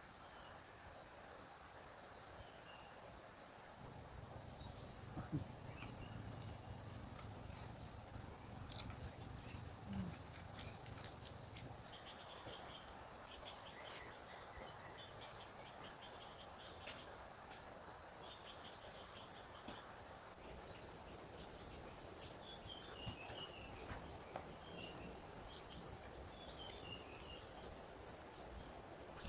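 Steady chorus of insects, crickets or similar, trilling continuously at a high pitch, with a higher layer that pulses in quick regular beats, and a few faint ticks.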